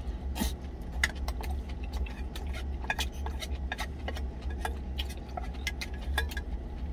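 A wooden spoon clicking and scraping against a stainless steel food container, with mouth sounds of chewing. A series of irregular sharp clicks sits over a low steady hum.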